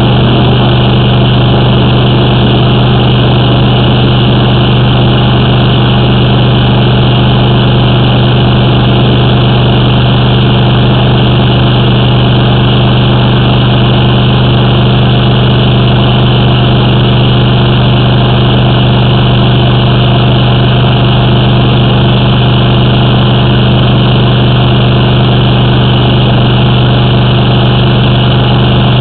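The engine of a high-pressure drain jetter running steadily at a constant pitch.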